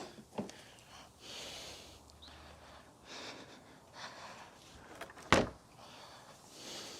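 Parts of a Kirby G3 vacuum being handled during disassembly: intermittent scraping and rustling, with one sharp knock about five seconds in.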